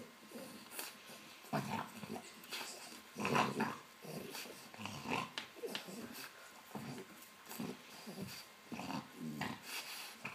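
French bulldog chewing and gnawing a tennis ball, with low growls coming in short irregular bursts; the loudest come about one and a half and three and a half seconds in.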